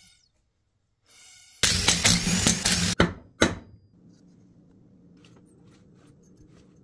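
Cordless impact driver running in one loud burst of about a second and a half, then a short second burst, while the engine is taken apart. A faint steady hum follows.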